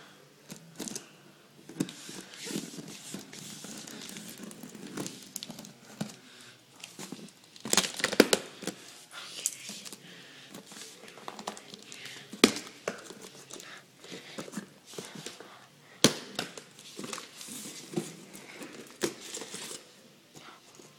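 Packaging being handled, crinkled and torn open by hand, with scraping and rustling and a few sharp clicks or knocks, the loudest three spread through the middle.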